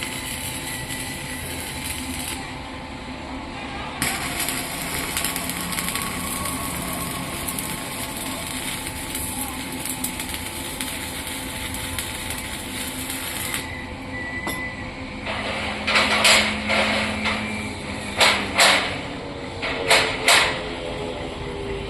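A steady hissing workshop noise, then about six sharp hammer blows on metal in three quick pairs near the end, as a gate grill is being fabricated.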